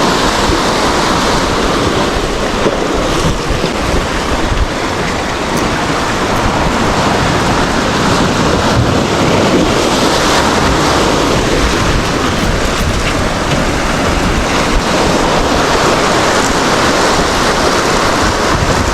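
Ocean surf and wind on the microphone: a loud, steady rushing noise.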